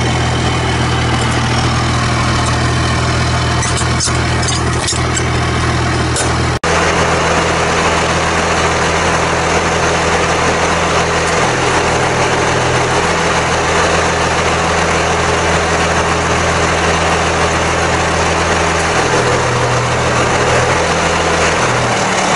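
A vehicle engine idling steadily with a low, even hum. The sound drops out for an instant about six and a half seconds in.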